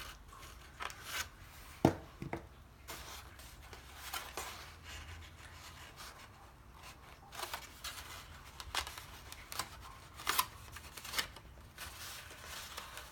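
Paper rustling and crinkling in short, irregular bursts as paper rose petals are handled, pulled and pressed into place, with a sharp tap about two seconds in.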